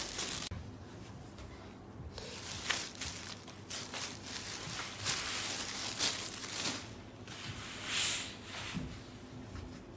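Saree fabric rustling and swishing as it is handled and unfolded, in irregular bursts, with a longer, louder swish about eight seconds in as the cloth is swept across.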